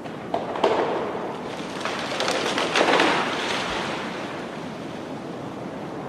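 Blizzard wind blowing through a forest: a steady rush that swells in two gusts, a short one about half a second in and a stronger, longer one around two to three seconds in, then eases back.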